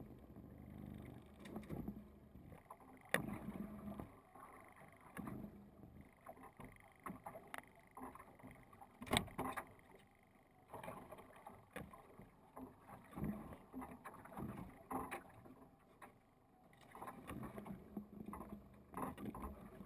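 Faint, irregular knocks and clunks of gear being handled on the deck of a small open fishing boat, over a low hum.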